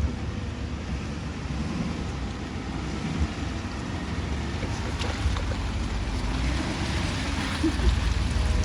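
Pickup truck driving over a rutted dirt trail: a steady low rumble with noise over it, slowly getting louder.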